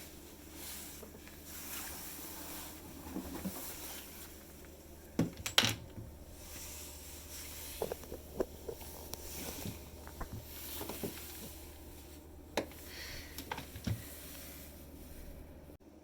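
Scattered light clicks and knocks of something being handled, the sharpest a pair about five seconds in, over a low steady hum.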